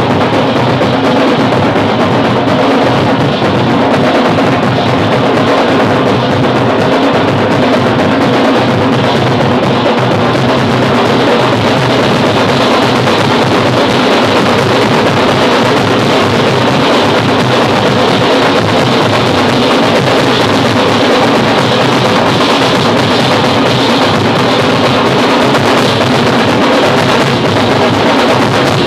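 Dhol-tasha street drumming: several barrel dhols and a metal-shelled tasha beaten with sticks in a loud, continuous ensemble groove.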